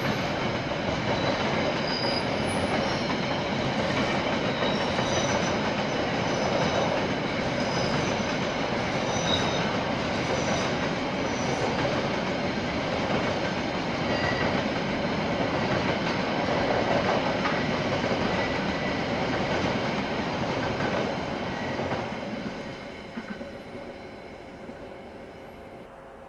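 Railway wagons rolling past on the track, a steady rumble with thin high-pitched wheel squeal over it. The sound fades away over the last few seconds.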